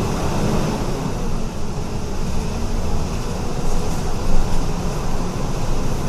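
MWM 7B270 Euro 5 diesel engine of a Volvo B270F bus chassis running steadily, with a deep low hum and a faint steady drone.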